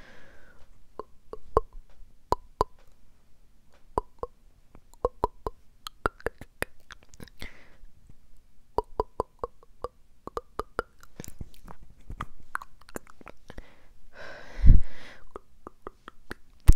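ASMR mouth sounds close-miked on a small lavalier microphone held at the lips: wet tongue clicks and lip pops in quick clusters, some with a hollow pitched pop. A louder rush of air hits the microphone near the end.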